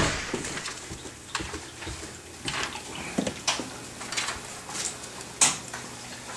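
Footsteps of two people walking through a house, with scattered light knocks and clicks about once or twice a second and a sharper click about five and a half seconds in.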